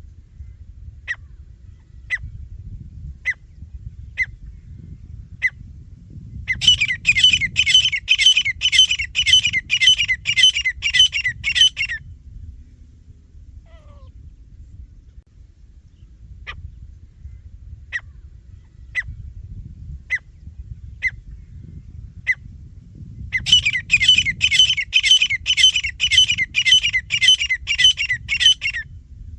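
Teetar (grey francolin) calling: spaced single sharp notes about once a second, then a loud fast run of harsh repeated notes, about two a second for some five seconds. The pattern plays twice.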